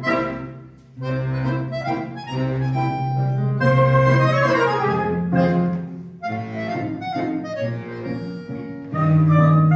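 Chamber quartet of accordion, clarinet, flute and classical guitar playing: the accordion holds long low notes under moving woodwind melody lines, with a brief lull about a second in.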